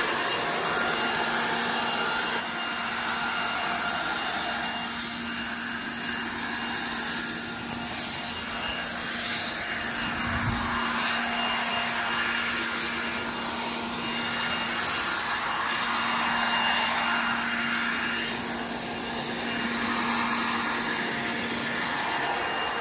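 Corded electric leaf blower-vacuum running steadily with a constant motor whine, its rushing air swelling and fading, with a few brief crackles.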